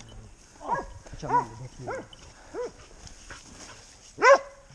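Hunting hounds barking at a downed wild boar: about five short, separate barks, the loudest near the end.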